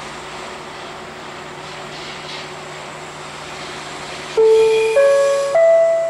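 Steady rumble of a track-inspection draisine moving through the station. About four seconds in, a loud station public-address chime rings out: clean notes stepping upward in pitch, each about half a second long, the signal that an announcement is coming.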